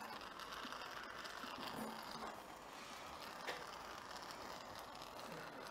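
Faint, steady operating-theatre background hiss, with a single soft click about three and a half seconds in.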